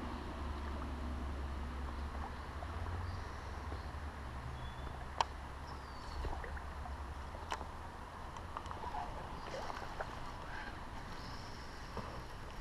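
Water moving at a creek over a steady low rumble. Several sharp clicks stand out, and there are a few short high chirps.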